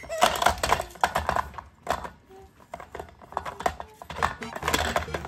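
Plastic clicking and rattling of a rotating food-dispenser toy as an Asian small-clawed otter paws at it and pulls on its clear drum. The clicks come in quick runs, with a short pause before the middle.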